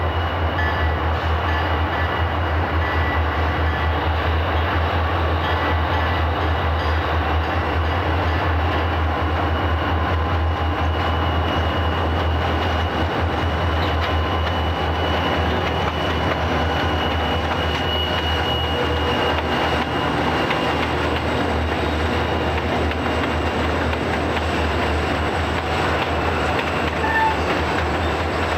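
A freight train led by several CSX diesel-electric locomotives passing close by, their engines and wheels making a steady, unbroken noise.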